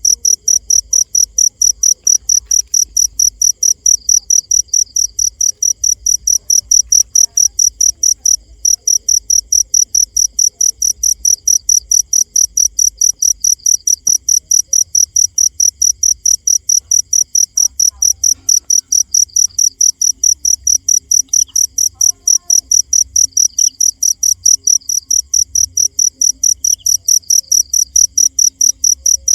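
A cricket chirping loudly and steadily in a fast, even pulse of high-pitched chirps, several a second, with one brief pause about eight seconds in.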